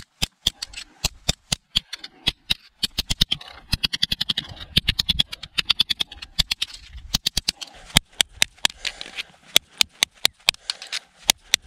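Tip of a Cold Steel SR1's S35VN tanto blade stabbed repeatedly into a stone block: a long run of sharp clicking strikes, several a second, steel point on rock.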